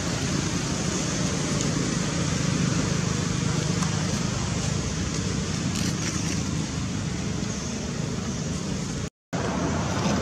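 Steady outdoor background hum and hiss with no animal calls. It cuts out completely for a moment about nine seconds in.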